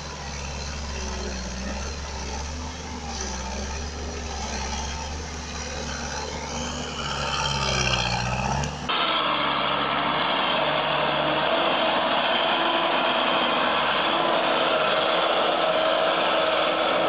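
Engine of a three-wheeled sugarcane grab loader running under load and revving as the machine rears up on a slope. About nine seconds in it cuts to another three-wheeled loader's engine running steadily.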